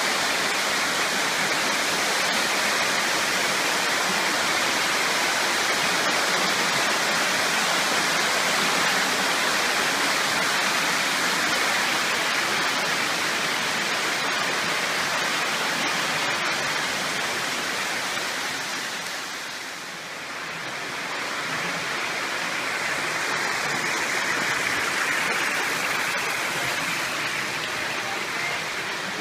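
Steady rush of a small waterfall pouring over sandstone rock, dropping briefly about two-thirds of the way through before coming back up.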